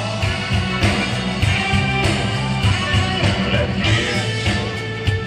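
Live band playing a country-rock song, with guitar over bass and drums.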